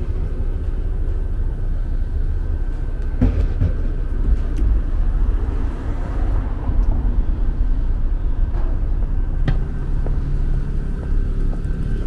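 Steady low city rumble of road traffic, with a couple of short clicks about three seconds in and again near the tenth second.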